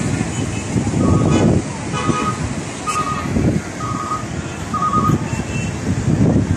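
Wind buffeting the microphone, with a short electronic beep repeating five times about once a second from about a second in.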